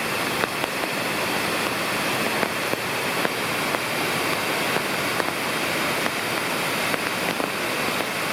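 Oshinkoshin Falls, a waterfall, pouring and splashing in a steady, unbroken rush of water.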